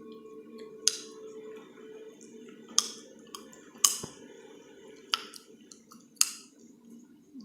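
Chewing gum snapped and clicked in the mouth: five sharp snaps about a second apart, with a few fainter clicks between, over a low steady hum.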